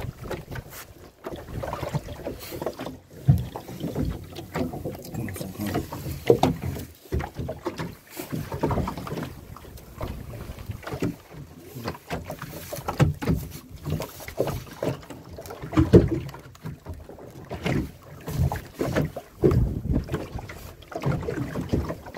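Small fishing boat at sea: irregular knocks and water sounds, uneven and without a steady rhythm.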